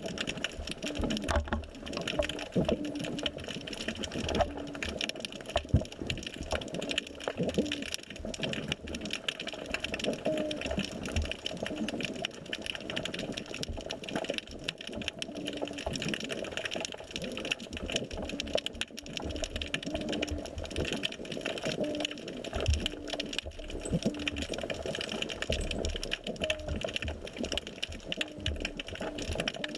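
Underwater sound picked up by a GoPro in its waterproof housing: a constant crackle of irregular clicks and knocks, with short low humming notes now and then.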